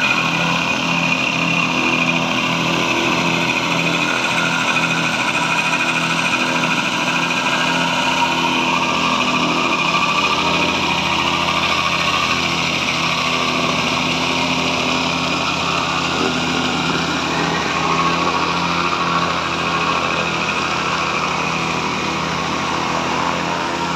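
Plate compactor running steadily, its small petrol engine and vibrating plate working over interlocking concrete paving blocks, with a regular pulsing hum.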